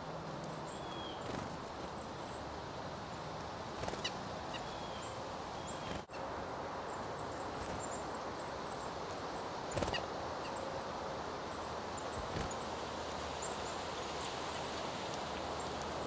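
Short, high chirps and calls of small songbirds now and then, over a steady wash of outdoor noise, with a few brief sharp knocks, the loudest near the middle.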